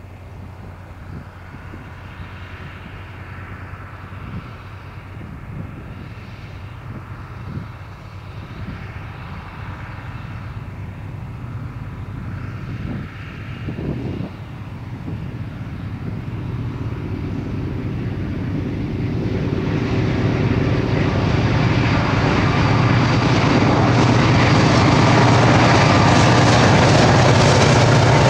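Freight train approaching on the tracks: the diesel locomotive's engine drone grows steadily louder and is loudest in the last few seconds as the locomotive and freight cars pass close by.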